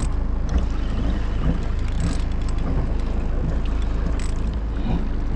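Small fishing boat's engine running, a steady low rumble, with a few faint clicks over it.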